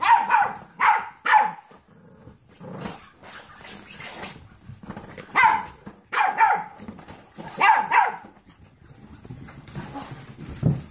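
A Pomeranian and golden retriever mix puppies barking in rough play: high, sharp barks in quick clusters, four at the start and more a few seconds later, with a short low growl near the end.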